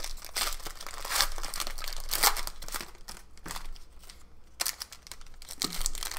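Plastic wrapper of a Panini Prizm basketball card pack crinkling and tearing as it is pulled open by hand, in irregular crackles with a short lull past the middle.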